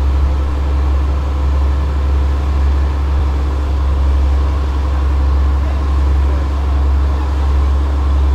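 Heavy engines running steadily: a loud, unchanging low drone with faint steady tones above it.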